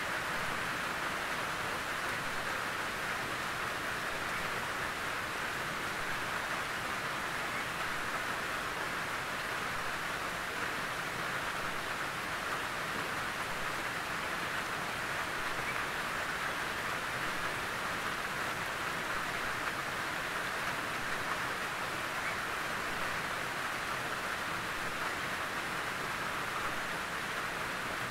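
Gentle rain falling steadily on a tin roof, an even hiss with no change in strength.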